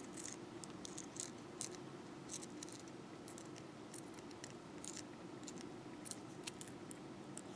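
Irregular faint clicks and small scrapes of fine beading wire being twisted tight, held in round-nose pliers.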